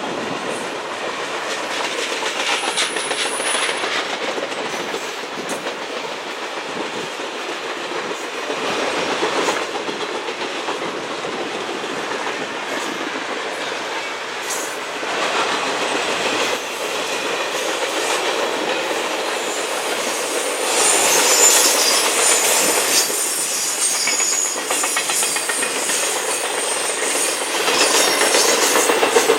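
Railroad cars of a passing train rolling steadily over the rails, with clickety-clack from the wheels over rail joints. A high wheel squeal rises about two-thirds of the way through.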